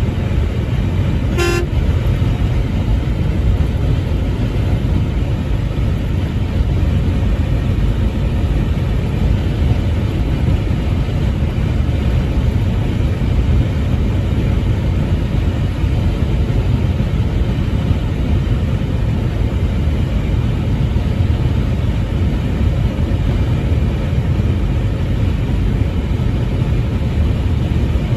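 Steady low rumble of a truck driving on the highway, with one short blast of the truck horn about a second and a half in.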